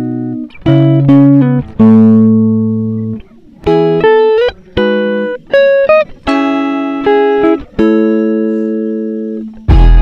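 Background music: slow plucked-string notes, each starting sharply and ringing as it fades, with a deep bass and fuller sound coming in near the end.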